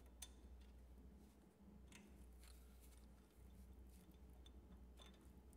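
Near silence: faint room tone with a few soft clicks.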